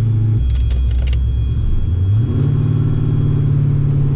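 Twin-turbo LS V8 of a Cadillac Escalade revving while driven in snow. The engine note drops about half a second in, then climbs a little after two seconds and holds at a higher steady pitch, with a few short ticks near the first second.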